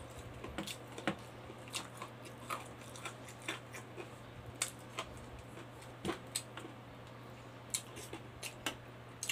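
Close-miked eating sounds of a person chewing rice and pork: irregular wet mouth clicks and lip smacks, about one or two a second, over a faint steady hum.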